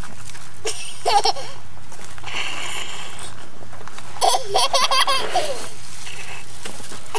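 A young child laughing: a short burst about a second in, then a longer run of giggling from about four to five and a half seconds.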